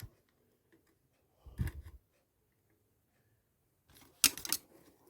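Small hand-work noises on a Makita 4324 jigsaw as its carbon brushes are being worked loose: a soft knock about a second and a half in, then two sharp clicks of plastic and metal parts just after four seconds.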